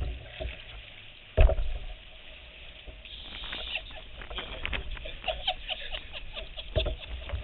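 Kayak moving through lake reeds: water patter and irregular light ticking and rustling against the hull, thickening about three seconds in, with one loud knock about a second and a half in.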